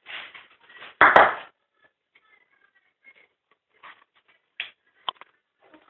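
Handling noise: a short rustling burst at the start, a louder one about a second in, then scattered light clicks and ticks. No siren tone is sounding.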